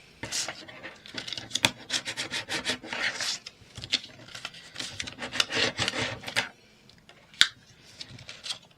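Paper envelope being folded shut and creased by hand: a run of rubbing, swishing strokes with small crackles, easing off with one sharp tick near the end.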